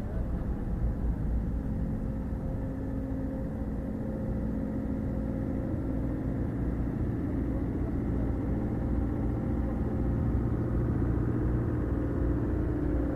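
Excavator engine running steadily with a continuous, even hum.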